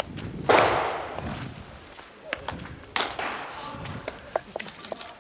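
Baseball practice: sharp knocks and thuds of balls being hit and caught, with a loud crack about half a second in and another about three seconds in, over faint voices of onlookers.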